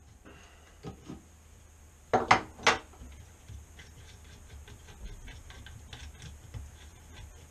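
Metal hand tools clicking and clinking on a vacuum motor's impeller as a socket is turned on its bolt while vice grips hold it: a single click about a second in, three sharper clicks a little over two seconds in, then light scattered ticking.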